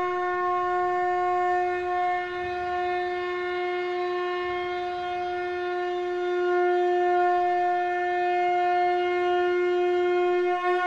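A shankha (conch shell) being blown in one long, steady note with a bright, harmonic-rich tone, wavering and breaking off right at the end.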